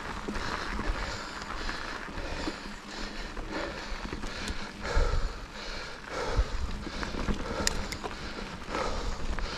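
A person breathing hard and rhythmically, about one breath a second, from exertion on an uphill climb, over a steady rumble of wind and movement noise on the microphone.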